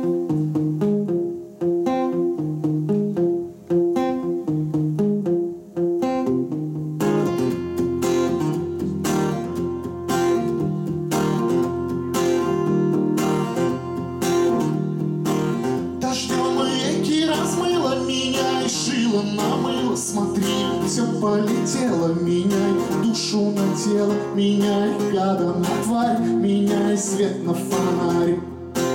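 Solo acoustic guitar opening a bard song: picked notes at first, then steady strumming from about seven seconds in. A man's voice sings over it in the later part.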